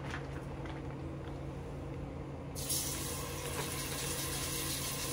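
Marinated oxtail pieces going into hot curried canola oil in a pot: a sizzle starts suddenly about two and a half seconds in and keeps going over a steady low hum, after a few faint clicks.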